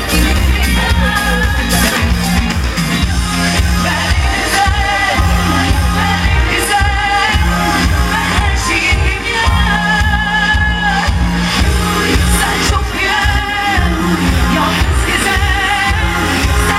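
Live pop concert: a woman sings into a microphone over her band's loud amplified backing, with a steady, heavy bass beat throughout.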